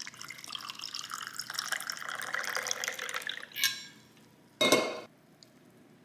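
Water running and splashing into a container for about three and a half seconds, as when filling up to make coffee, then two short knocks about a second apart.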